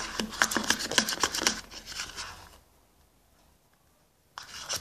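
Metal teaspoon stirring and scraping a thick gel shampoo and salt mixture around a plastic tub in quick strokes. The sound cuts off to dead silence after about two and a half seconds, and the scraping returns near the end.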